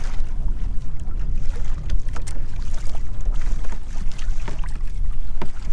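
Stiff, constant wind buffeting the microphone as a loud, uneven low rumble, with scattered light ticks and slaps from the kayak and the choppy water around it.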